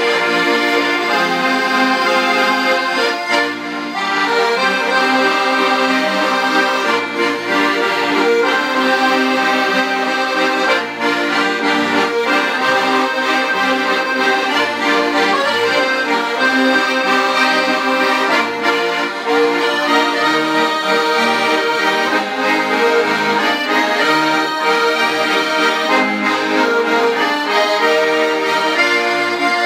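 An ensemble of five accordions playing a piece together, a full, continuous sound of held and moving notes over a steady rhythm.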